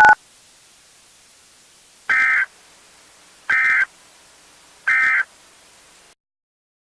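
Emergency Alert System end-of-message code: three short bursts of buzzy digital data tones about a second apart, marking the end of the alert. A faint hiss runs under them and cuts off to silence about six seconds in.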